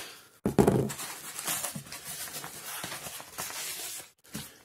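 Paper padded mailer rustling and crinkling as a packaged item is pulled out of it, with a short vocal sound about half a second in.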